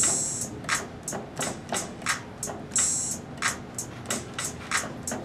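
Electronic drum sounds triggered by touching the foil pads of a MaKey MaKey controller: a steady beat of short hits, about three a second, with a longer cymbal-like hiss opening each bar, roughly every two and three-quarter seconds.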